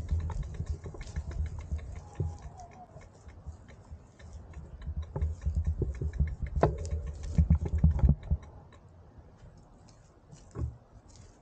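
Low wind rumble on the microphone with light, irregular ticking from a slowly rolling bicycle, typical of a freewheel hub clicking while coasting. Both die away about eight seconds in as the bike stops, leaving a quiet background with one soft bump near the end.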